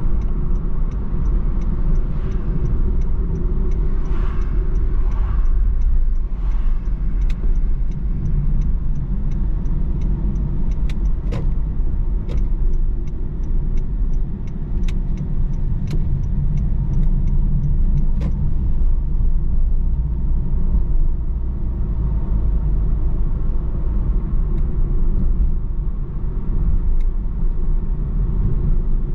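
A car driving: a steady low rumble of engine and road noise. A fast, even, light ticking runs through the first half, and a few sharp clicks or knocks come around the middle.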